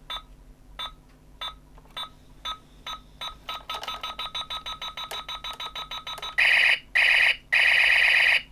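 Electronic beeps from a 1999 Thinkway Ultra Buzz Lightyear alarm clock toy's speaker. They come about twice a second, speed up into a fast run about halfway through, then give way to three long, loud tones near the end.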